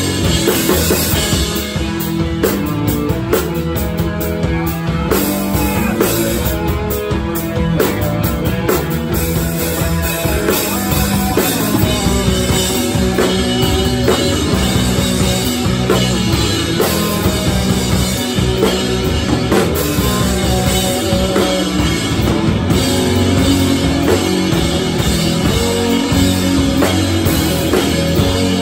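Rock band playing live and loud: a drum kit hit hard with cymbals, and electric guitars.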